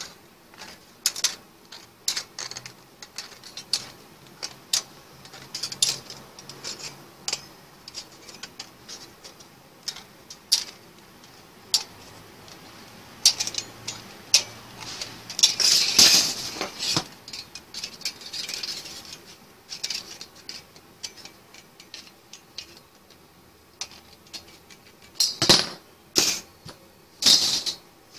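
Aviation tin snips cutting thin sheet-metal strips: a steady run of sharp metallic snips and clicks, with a longer stretch of continuous cutting about halfway through. Near the end come two louder knocks.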